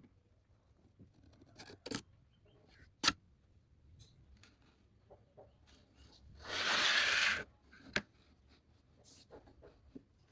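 Workshop handling sounds: a few sharp knocks, the loudest about three seconds in, and a rasping noise lasting about a second past the middle.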